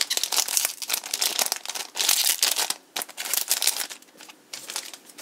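Foil booster-pack wrapper crinkling and tearing as it is handled and opened, in irregular bursts of crackle that thin out near the end.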